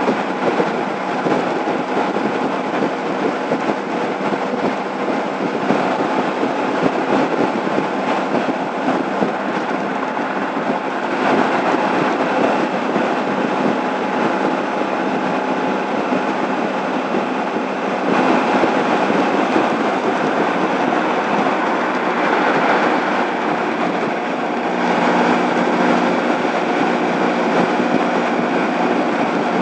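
Wind rush and road noise from a Honda ST1100 sport-touring motorcycle cruising at freeway speed, with the engine running underneath. The noise steps up louder three times, about a third of the way in, past the middle, and near the end.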